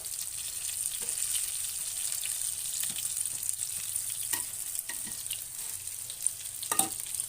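Hot cooking oil sizzling steadily as battered food fries in a pan, with scattered sharp pops and clicks and a louder crackle near the end.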